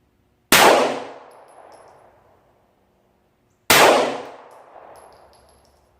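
Two shots from a Glock 19 Gen4 9mm pistol, about three seconds apart, each a sharp crack followed by a long decaying echo.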